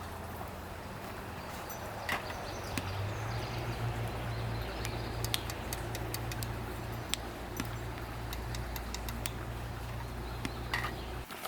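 Pickup truck engine running steadily, with light clicks and knocks over it, then switched off near the end.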